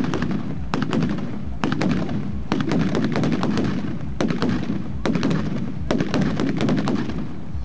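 Mascletà firecrackers going off in a dense, rapid barrage of loud bangs, with heavier clusters coming about once a second.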